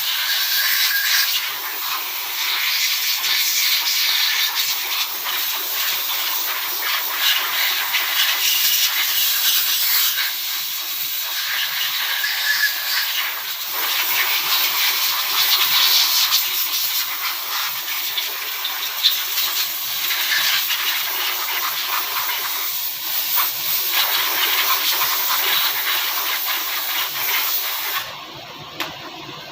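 Long, steady hiss of compressed air blowing from an air gun in a workshop, cutting off suddenly near the end.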